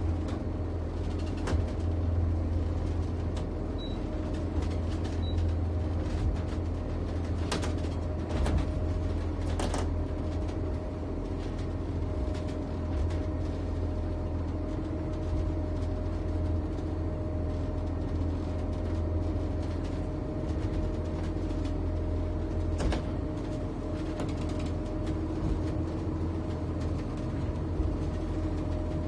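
Steady low drone of a 56-foot Carver Voyager motor yacht's engines running underway, heard inside the pilot house, with a few short knocks scattered through it.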